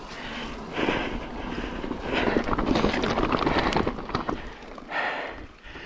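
Electric mountain bike rolling fast down a gravel and dirt forest track: knobbly tyres crunching and crackling over loose stones, with wind buffeting the microphone. The crunching is densest about two to four seconds in.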